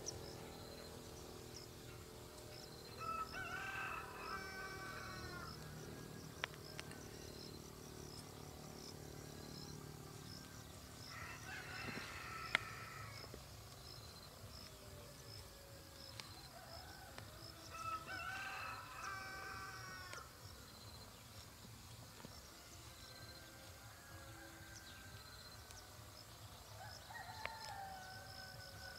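A rooster crowing four times, each crow about two seconds long and several seconds apart, over a steady high chirping in the background. A few sharp clicks come between the crows.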